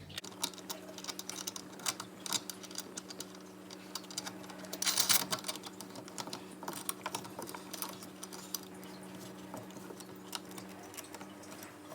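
Irregular small metal clicks and scrapes as a cable strain-relief clamp's locknut is threaded on by hand at the dishwasher's electrical box, with a longer scrape about five seconds in. A steady low hum runs underneath and partly drops out near the end.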